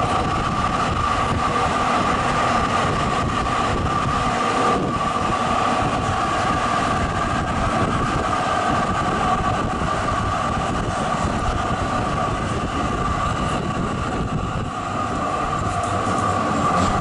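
Tram running at speed along the track, heard through an open side window: steady rolling noise with a constant two-note whine.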